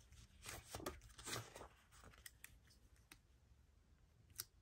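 Faint paper handling: a sticker book's page is flipped and a paper sticker is peeled and pressed onto a planner page. Soft rustles come in the first couple of seconds, and there is a sharp tick near the end.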